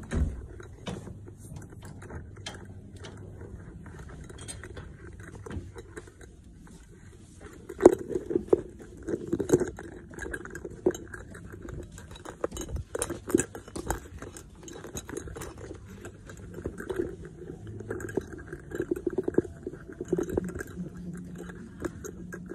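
Handling noise: scattered clicks, knocks and light clinks, busier and louder from about eight seconds in.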